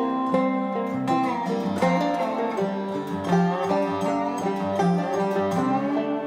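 Instrumental background music led by plucked string instruments, moving from note to note at an even level.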